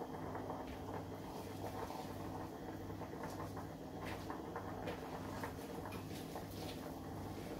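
Faint, irregular crackling and ticking from a pot of vegetable soup heating on an electric hob under a heap of freshly added waterleaf, over a steady low hum.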